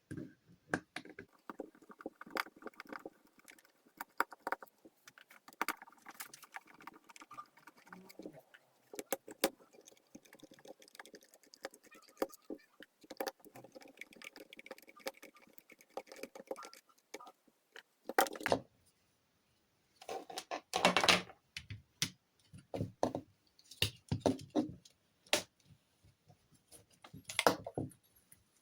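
Hot air soldering station being taken apart by hand: a long run of small clicks and scrapes as the screws in its base are worked out, then several louder clattering handling noises in the last third as the casing is opened.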